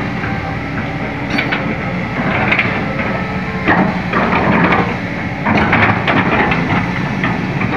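Kobelco SK200 hydraulic excavator's diesel engine running under load while the arm lifts, swings and lowers a full bucket of earth. There is a steady low engine drone, and several louder, rougher surges of hydraulic and clanking noise as the arm moves.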